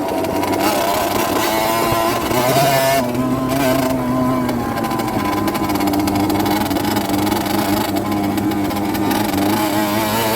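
Rieju Drac 50's small 50cc two-stroke engine running while riding, its revs rising and falling a little.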